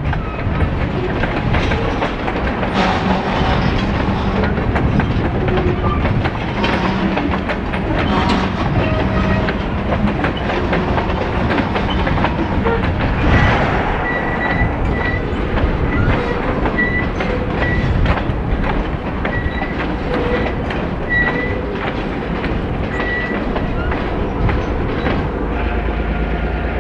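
Freight train of covered hoppers and boxcars rolling past, its wheels clicking over the rail joints in a steady clickety-clack, with a thin squeal from the wheels coming and going through the middle.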